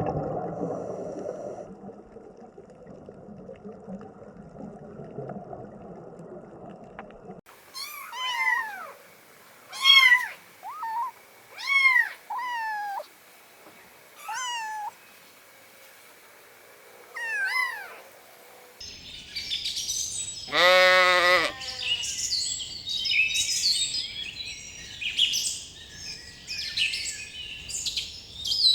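A dog panting in breathy huffs for the first seven seconds, then a domestic cat meowing several times, each meow falling in pitch. From about two-thirds of the way in, birds chirp busily, with one loud drawn-out animal call among them.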